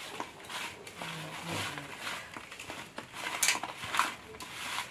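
Sliced red radish rounds being tossed and rubbed with salt by hand on a steel plate: the slices scrape and clatter against the metal, with two sharper clinks about three and four seconds in.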